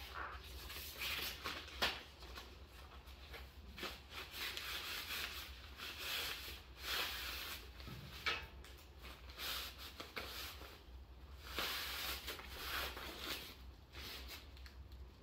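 A fabric storage bag rustling and swishing as it is tugged along a rolled-up felt puzzle mat, in irregular strokes, with a sharp tap about two seconds in.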